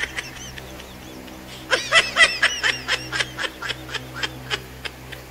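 Laughter: a quick run of high-pitched giggles starting about a second and a half in and lasting about three seconds.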